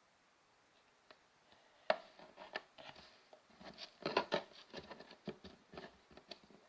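Slime being worked by hand, giving a sharp click about two seconds in and then a run of small clicking and crackling pops.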